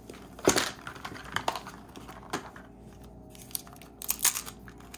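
Hard plastic Zuru 5 Surprise Mini Brands capsule being pried open and handled: a string of irregular clicks, snaps and plastic crinkling, the loudest snap about half a second in and another cluster near the end.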